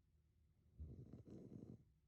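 A sleeping woman snoring: one faint snore lasting about a second, starting just under a second in, with a short break in the middle.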